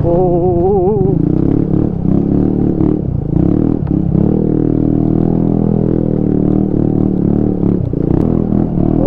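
TVS Ntorq 125 scooter's single-cylinder engine running steadily while riding over a rough, rocky gravel track, with frequent knocks and rattles as the scooter jolts over the stones.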